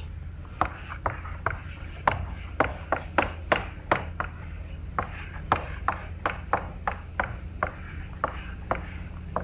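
Chalk writing on a blackboard: a string of short, irregular taps and scrapes, about three a second, as letters are chalked. A steady low hum runs underneath.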